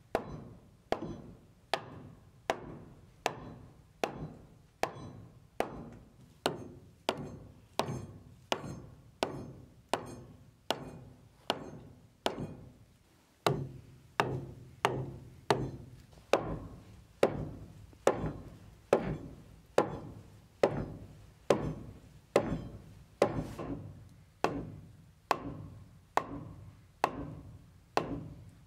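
Percussive music: a steady, even beat of hollow wooden knocks, a little under two a second, over a low drone that grows fuller about halfway through.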